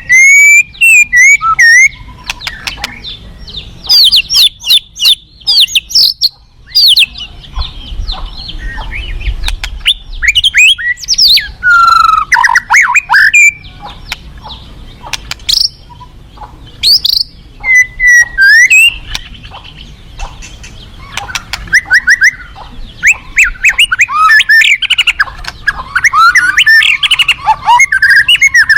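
White-rumped shama singing: a loud, varied stream of quick whistled sweeps and sharp clicking notes in bursts, with short pauses between phrases.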